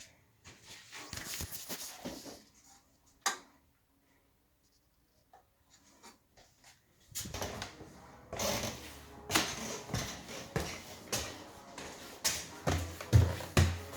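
Rustling and knocking of objects being handled at close range, with a sharp click a few seconds in. This is followed by a few seconds of near silence, then a busier stretch of rustling, clatter and low thuds.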